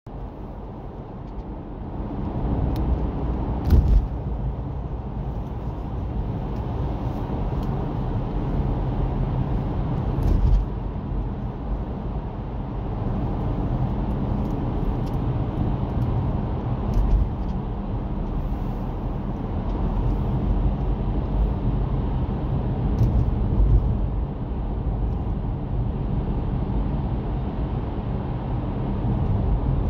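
Car driving through a highway tunnel: steady road and engine noise with a low rumble, broken by a few brief thumps.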